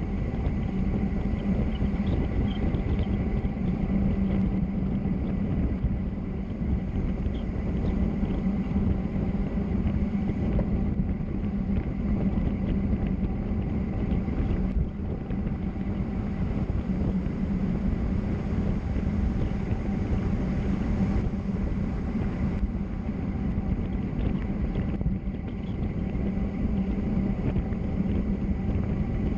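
Steady wind and road rumble on a fast bicycle descent: wind buffeting the microphone over a low, continuous tyre-and-road roar with a steady hum underneath.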